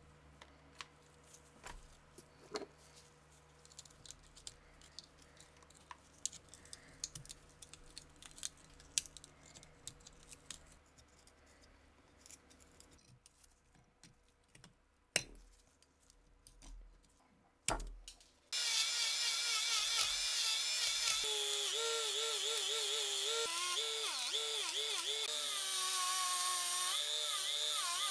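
Faint hand-tool scraping and a few sharp clicks on rusted metal. About two-thirds of the way in, a handheld rotary tool with an abrasive wheel starts and runs steadily, grinding rust off a pistol part, its whine wavering in pitch as it bears on the metal.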